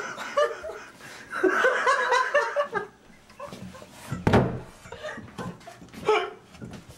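Young women laughing in bursts, then a sudden thump about four seconds in, followed by a short burst of laughter near the end.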